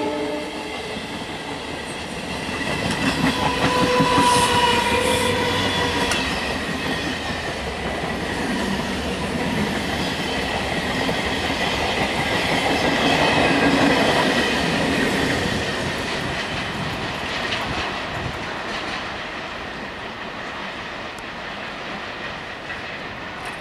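Indian Railways electric multiple unit local train passing close by, its wheels clattering over the rail joints. High steady squealing tones from the wheels come in a few seconds in and fade after the middle, with the train noise loudest around then.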